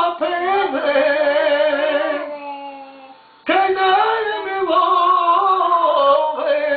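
A man singing with wavering pitch to a piano accordion. Just past the middle the singing drops away for about a second, leaving a held note that fades, then it comes back loud.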